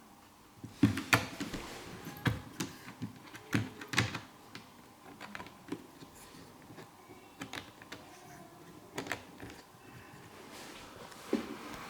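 Irregular clicks, taps and knocks as boxes of model locomotives are handled and unpacked, the loudest knocks around the first few seconds and again near the end.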